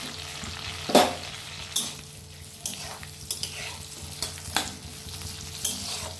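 Chillies frying in hot oil in a metal kadai: a steady sizzle, with a metal spatula stirring and knocking against the pan about seven times. The loudest knock comes about a second in.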